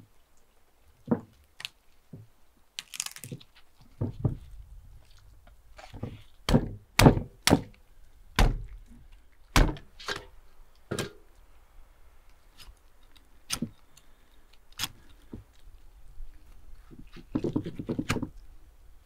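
A string of irregular knocks and thuds as heavy raw beluga sturgeon heads are handled and set down on a wooden stump block and in a metal bowl, with a rustle of handling near the end.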